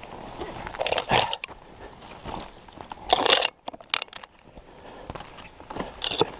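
Dry branches and undergrowth crunching, crackling and snapping as someone pushes on foot through dense scrub. It comes in irregular bursts, the loudest about a second in and about three seconds in.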